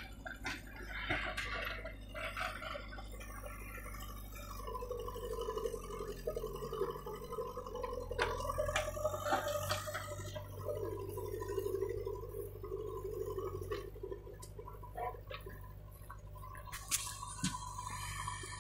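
Diesel engines of a JCB backhoe loader and a tractor running steadily, with a higher engine hum swelling in twice, around five and eleven seconds in, as the loader works its arm. Scattered knocks and clatter come through on top.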